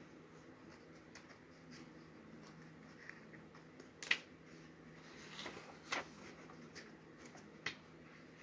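A stack of paper sheets being handled and leafed through: faint rustling with a few short crisp taps, the sharpest about four seconds in and again about six seconds in.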